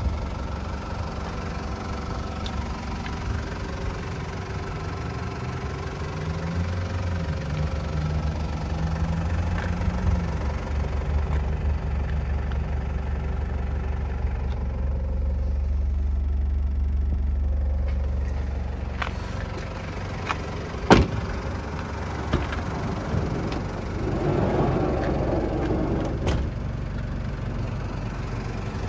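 Toyota 1KZ-TE 3.0-litre four-cylinder turbo diesel idling steadily, heard from inside the van's cabin. One sharp click about 21 seconds in.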